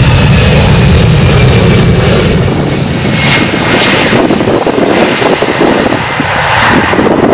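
Airbus A320's jet engines at take-off thrust as the airliner rolls, rotates and lifts off. A loud low rumble dominates the first couple of seconds, then thins into a steady hissing engine noise as it climbs away.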